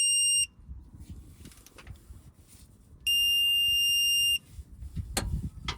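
Electronic torque wrench beeping as an oil drain plug is tightened to 18 ft-lb: a short high beep, then a longer steady beep about three seconds in as the set torque is reached. A sharp knock follows near the end.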